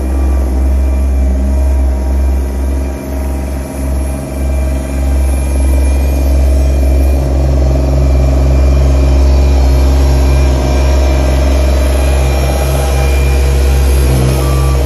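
Dynapac CC900 ride-on tandem drum roller running as it rolls over sand, a steady deep diesel drone that stays loud throughout and is close by near the end.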